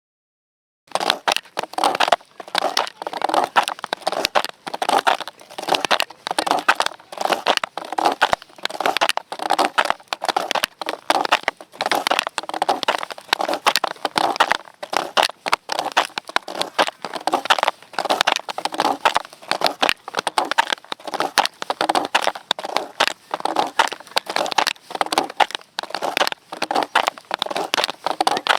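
Footsteps in snowshoes crunching through snow at a steady walking pace, starting about a second in after a moment of silence.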